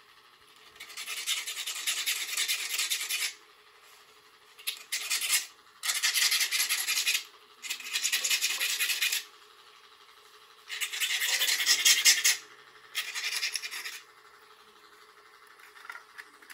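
Hand filing of a small part during the repair of a rotary tattoo machine: six runs of rasping strokes, each about one to two and a half seconds long, with short pauses between.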